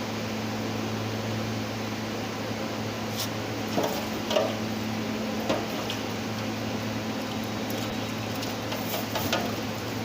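A steady low mechanical hum, like a fan, runs throughout. From about three seconds in it is overlaid by a scattering of short clicks and clinks, typical of hand tools and small parts handled against metal during engine work.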